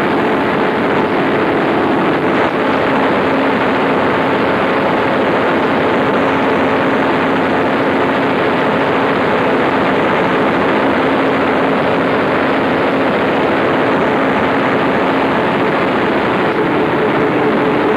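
Large Fairbanks Morse stationary diesel generator engine running steadily at constant speed: a loud, even mechanical din with a few held tones.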